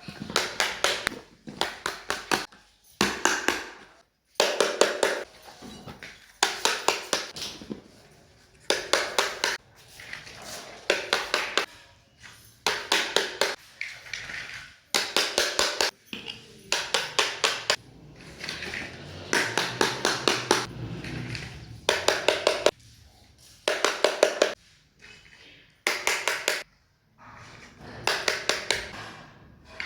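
Small plastic toy kitchen pieces being handled and tapped: short bursts of quick clicks and taps, each burst a rapid run of several clicks, coming about every second or two, with softer rubbing and handling noise between some of them.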